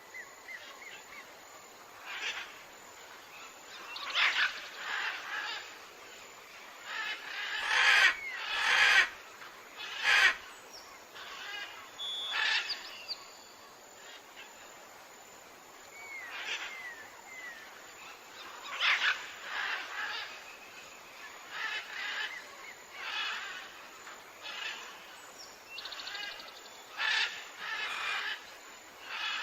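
Jungle ambience of many birds calling over a faint steady background: repeated short calls and chirps, some small curved whistles, and a loud cluster of calls about eight to ten seconds in.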